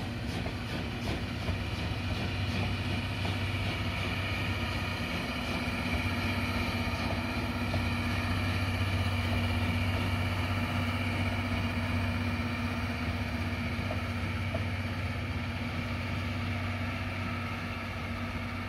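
Departing passenger train: the rail clatter fades in the first second, leaving a steady engine-like drone with a low hum and a high whine. The drone swells near the middle and slowly eases off as the coaches pull away.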